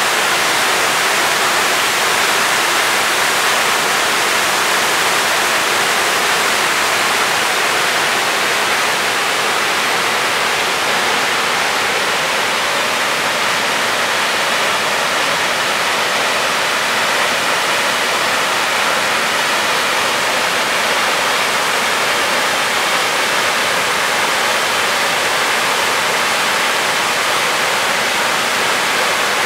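Steady, unbroken rush of a powerful 21-metre waterfall crashing down over rock.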